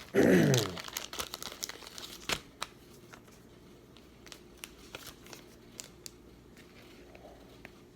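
Trading card pack wrapper crinkling and being torn open, then cards being handled with scattered light ticks. Just after the start there is a loud, short sound whose pitch falls.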